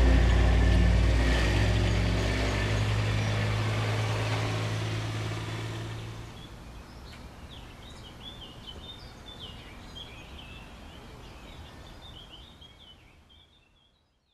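A low, sustained soundtrack chord fading out over about six seconds, then faint outdoor ambience with small birds chirping, fading to silence near the end.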